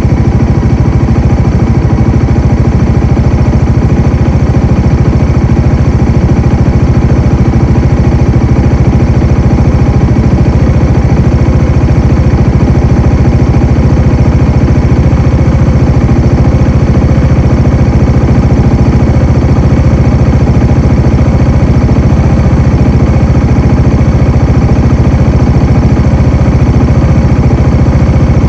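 Bajaj Dominar 400's single-cylinder engine running at a steady, unchanging speed, without revving.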